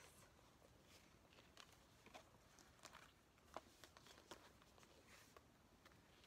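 Near silence with a few faint, short paper rustles and light clicks as an album's lyric booklet is handled.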